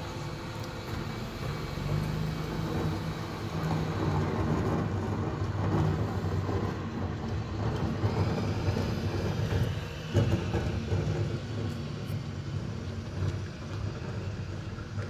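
Bin lorry's diesel engine running steadily, with a sharp knock about ten seconds in.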